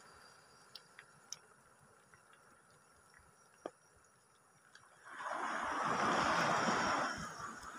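Shallow seawater over a reef flat: a few faint clicks, then about five seconds in a rush of water washing over the reef that lasts about two seconds.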